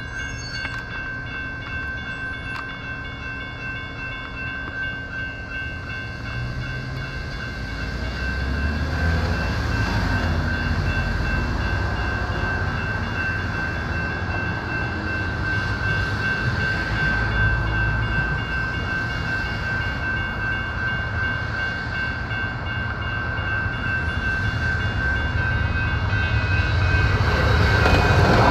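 A railroad crossing bell rings steadily at an activated light-rail crossing. Under it a light rail train's rumble builds, louder from about a quarter of the way in and loudest near the end as the train reaches the crossing.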